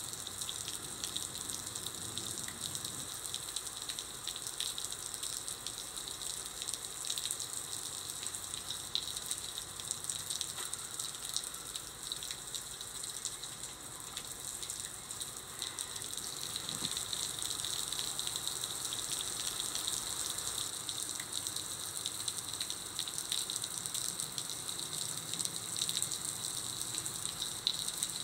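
Steady rain falling, a dense, even hiss of many small drops.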